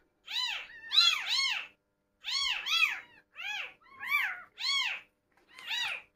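Several newborn kittens, eyes still shut, mewing over and over: about nine short, high calls, each rising then falling in pitch, some overlapping as more than one kitten calls at once.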